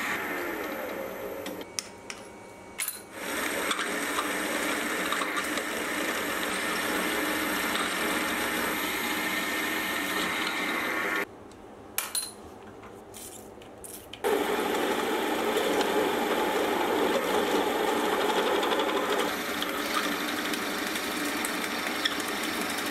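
Milling machine spindle running steadily while twist drills bore into an aluminium block. The run is broken twice by quieter stretches with a few clicks, about two seconds in and from about eleven to fourteen seconds.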